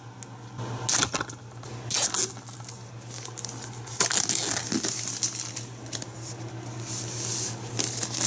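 Plastic shrink wrap being torn open and peeled off a cardboard DVD box set: crinkling, tearing rustles in several short bursts, the longest about four seconds in.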